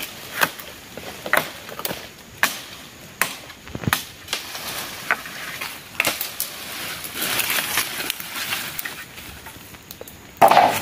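Machete chopping into thin sapling poles: irregular sharp chops, a second or so apart, among rustling brush, with a louder short burst near the end.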